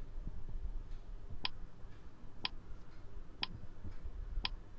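Countdown timer sound effect ticking four times, about once a second, counting down the seconds left to answer a quiz question.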